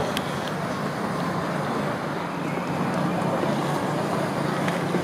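Steady outdoor crowd ambience around a tennis court between points: low chatter of seated spectators with wind noise on the microphone, and a couple of faint clicks.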